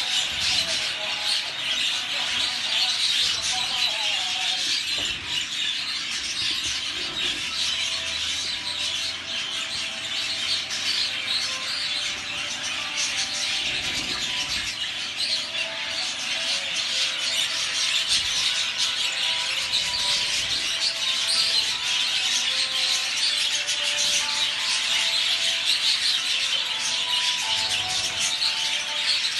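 Many budgerigars chattering and chirping at once, a dense unbroken warble that never pauses.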